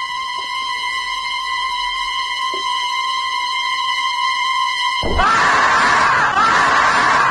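An added sound effect: a steady high-pitched tone that grows slowly louder, then a loud, harsh, screaming noise from about five seconds in that cuts off sharply.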